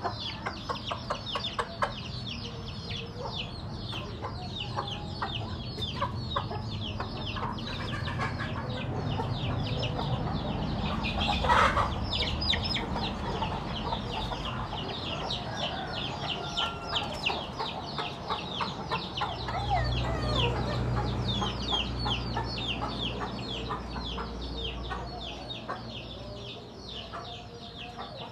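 Chickens clucking and chirping, with many rapid high chirps throughout and one louder call about eleven seconds in. A low steady hum grows louder for several seconds in the second half.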